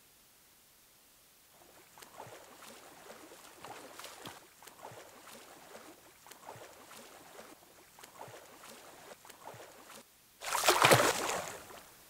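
People wading into shallow lake water, splashing with each step about twice a second. About ten seconds in comes a much louder splash as they plunge in.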